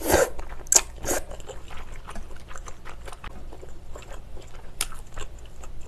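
Close-miked slurping from a bowl of glass noodles in spicy pork-rib broth: three quick slurps in the first second or so and another about five seconds in. Between them come soft wet chewing and small mouth clicks.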